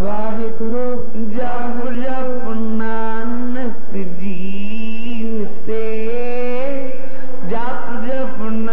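Sikh shabad kirtan music: one sustained melody line that holds notes and glides between them without a break.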